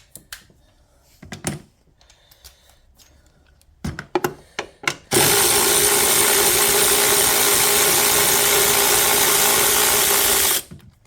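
A few light knocks and clicks of tools on parts, then a power drill runs steadily for about five and a half seconds and stops abruptly, likely spinning out a fastener.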